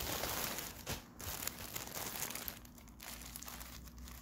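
Tissue paper crinkling and rustling as a wrapped package is handled, in uneven bursts that are loudest in the first second.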